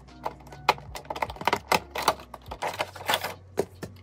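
Clear rigid plastic case clicking and scraping as a hard-cover A5 binder is slid out of it and handled: a quick, irregular run of taps and rubs.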